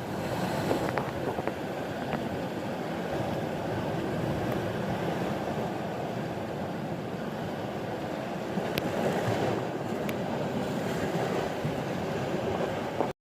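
Steady rushing of sea surf and wind at the shoreline, with a few faint clicks, cutting off suddenly near the end.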